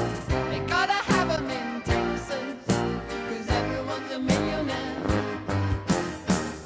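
A recorded song with a drum beat, bass and a singing voice, played back as a direct line capture from a headphone amplifier's output.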